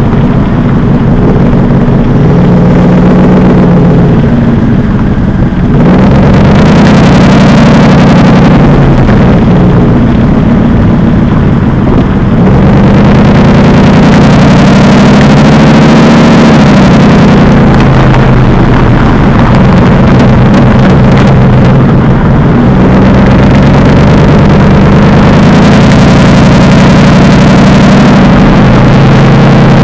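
Mercedes-Benz SLR McLaren's supercharged 5.4-litre V8 running loud through a Devil Sports aftermarket exhaust, the engine note rising and falling with the revs. It gets louder and harsher about six seconds in and again about twelve seconds in.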